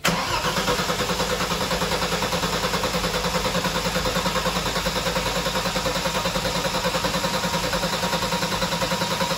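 Turbocharged Mercedes M104 straight-six idling with a steady, even pulse. The engine is misfiring, which was traced to two wrong fuel injectors.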